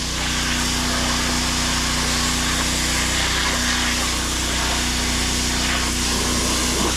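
Gas-engine pressure washer running steadily, with the hiss of its water spray.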